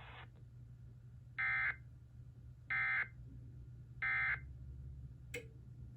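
Emergency Alert System end-of-message data signal: three short buzzing bursts of digital data tones about a second and a half apart, marking the close of the alert. A single click follows near the end.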